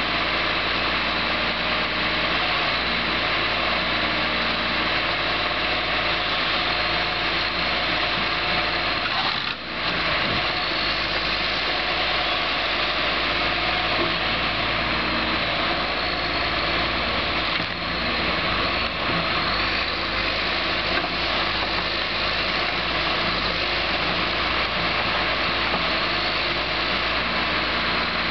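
John Deere 710D backhoe loader's diesel engine running steadily as the backhoe arm lifts and swings logs.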